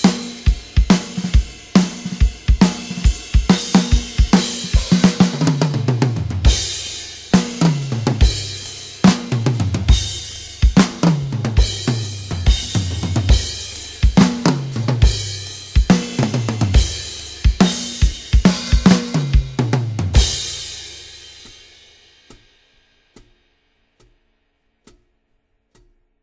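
Background music with a drum-kit beat of snare, hi-hat and bass drum over repeated falling bass notes. About twenty seconds in it ends on a cymbal crash that rings out and fades to near silence.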